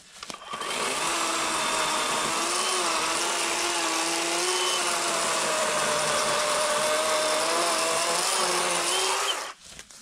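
Worx 40-volt cordless electric chainsaw with an 18-inch bar cutting into a trunk. The motor whine starts about half a second in, sags a little in pitch under load, and stops shortly before the end. The wood is a still-living poplar, which cuts a little harder.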